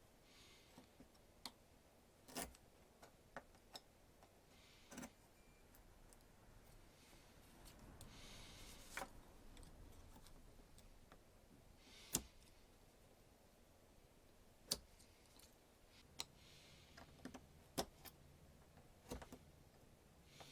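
Near silence broken by a dozen or so scattered light clicks and taps, irregularly spaced, with a few brief soft rustles between them; the sharpest click comes about halfway through.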